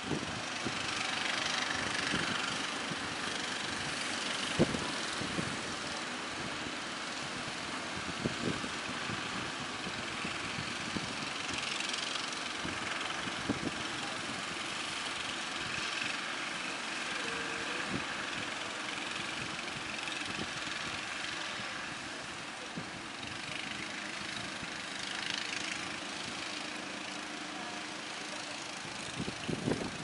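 Engines of motorised wooden outrigger fishing boats running as they power through breaking surf, over the steady wash of waves, with a few sharp knocks.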